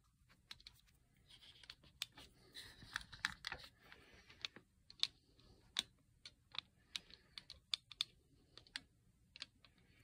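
Irregular light clicks and taps, with a soft rustle in the first half, from objects being handled and set down on a desktop.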